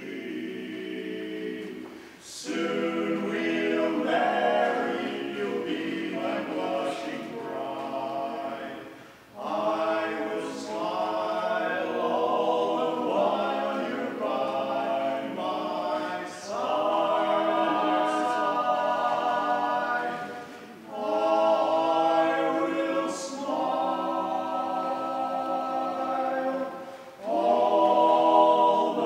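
Male barbershop quartet singing a cappella in close four-part harmony, with held chords in phrases of several seconds and brief breaks between them.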